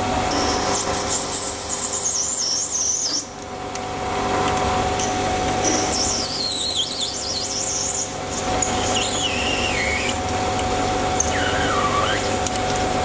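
Sieg C3 mini lathe running steadily while a tangential high-speed steel tool, tilted back in its holder for clearance, cuts acrylic. Wavering high-pitched squeals from the cut come and go several times, and the last one falls in pitch.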